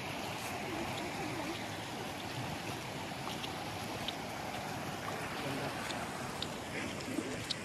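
Steady rush of a shallow stream running over rocks, with a few light clicks of footsteps on stones.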